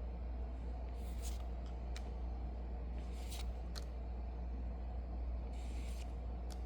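Trading cards being handled and flipped through, giving a few short, soft swishes of card stock sliding against card stock, over a steady low hum.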